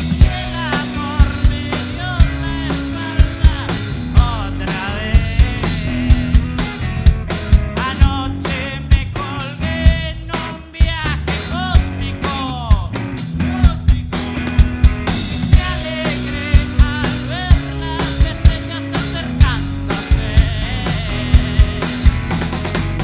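A live band playing: a drum kit keeps a steady beat under sustained bass notes and melodic lines that bend in pitch, with a short drop in level about halfway through.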